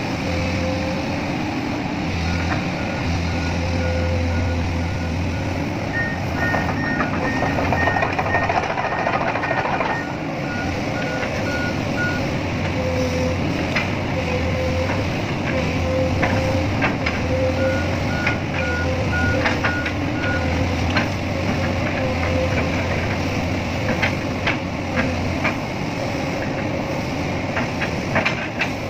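Diesel engine of heavy machinery running steadily while an electronic warning alarm beeps in an even series, typical of an excavator's or truck's motion alarm. For a few seconds a second alarm of a different pitch beeps alongside it. In the second half come scattered sharp knocks and clanks.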